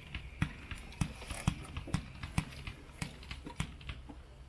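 A 58-shot consumer fireworks cake firing its shots one after another: a string of sharp launch pops, about two a second, thinning out near the end.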